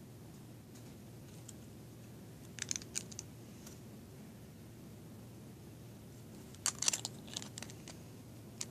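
Lego bricks being handled and pressed together: two clusters of short plastic clicks, about three seconds in and again near the end, over a low steady hum.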